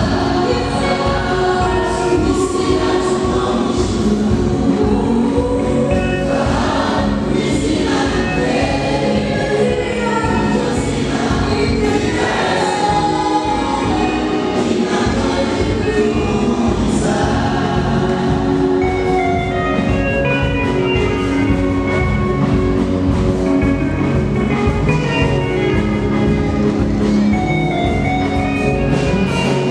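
Mixed choir of men and women singing a gospel song through microphones over amplified backing music.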